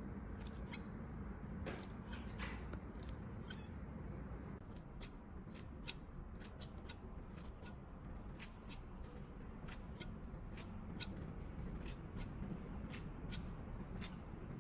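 Kitchen scissors snipping over and over, each closing of the blades a sharp click. The clicks are sparse at first, then come steadily at about three a second.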